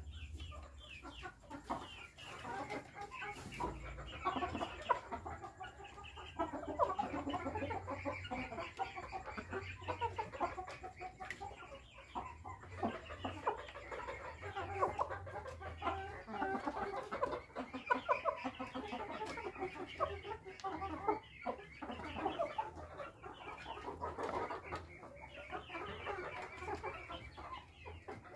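A group of chickens clucking continuously while they feed at a trough, many short overlapping clucks with no pause.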